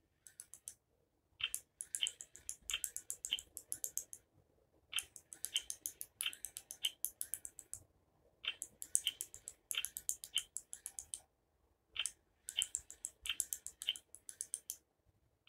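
Baby Alive Snackin' Sara doll's electronic chewing sound: a rapid run of sharp clicks, set off by play food pressed into its mouth. The clicks come in about five bursts of a couple of seconds each, with short pauses between them.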